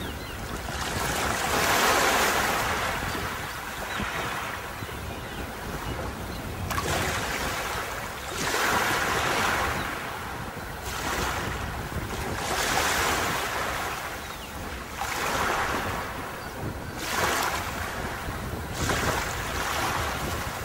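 Sea waves breaking and washing up a beach, one surge after another about every two to three seconds, over a steady low rumble of wind on the microphone.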